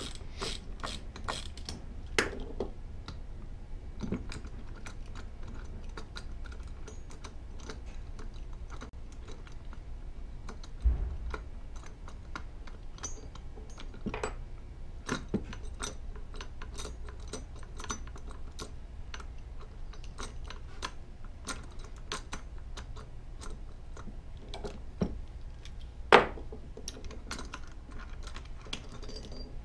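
Hand socket ratchet clicking as the body bolts of a gas pressure regulator are loosened, first in a steady run of about three clicks a second, then in short scattered runs. Metal tools and parts clink, and there is a single dull thump about eleven seconds in.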